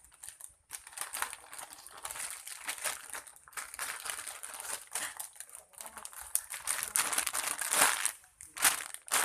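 Soft foam squishy toy being squeezed close to the microphone: a crinkly, crackling rustle in uneven squeezes, loudest near the end.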